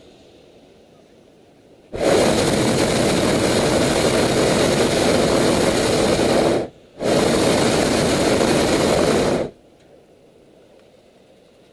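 Hot air balloon's propane burner firing in two blasts, the first about four and a half seconds long, then a short break and a second of about two and a half seconds, each starting and stopping abruptly.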